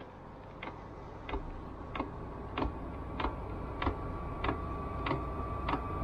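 Chinese all-in-one diesel air heater starting up: its fuel dosing pump ticks about one and a half times a second while the blower fan spins up, the sound growing slowly louder. A steady whine comes in about halfway through.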